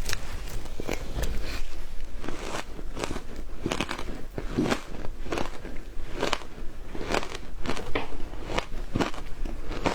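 Close-up crunching of frozen matcha ice being bitten and chewed: a quick, uneven run of crisp crunches, several a second.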